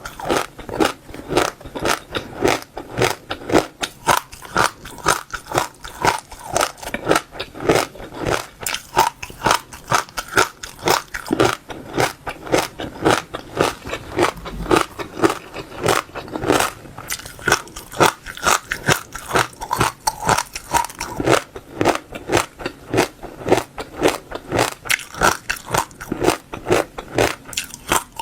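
Close-up ASMR chewing of passion fruit seeds: a steady run of crisp crunches and crackles, several bites a second, as the seeds are crushed between the teeth.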